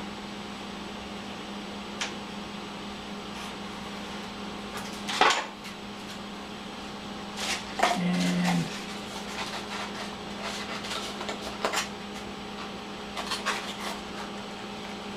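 Small knocks, taps and clatter of tools and foam-board pieces being handled on a wooden table, with one louder knock about five seconds in and a brief low buzz about eight seconds in, over a steady low hum.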